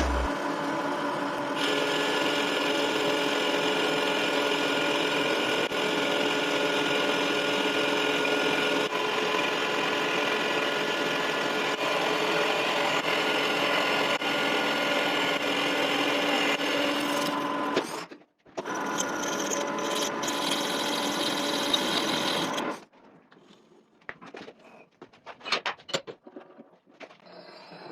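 Lathe running steadily with a mechanical whine of several steady tones. It cuts out for a moment about two-thirds of the way through and stops for good a few seconds later. Light metallic clinks and taps follow.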